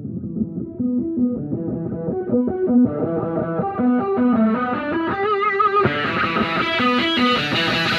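Background guitar music: a rhythmic riff that starts muffled and grows gradually brighter, opening up fully about six seconds in.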